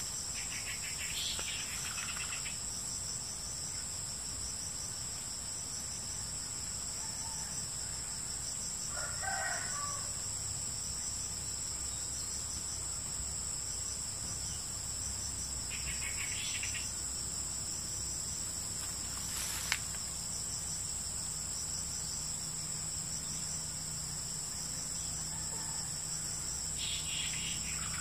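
Steady, high-pitched drone of forest insects, with a rooster crowing once about nine seconds in. A single sharp click comes a little past the middle.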